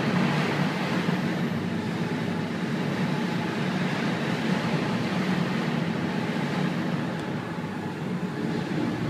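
Steady low rumble heard inside the ferry Pont-Aven as she runs through a force 10 gale, easing a little about seven seconds in.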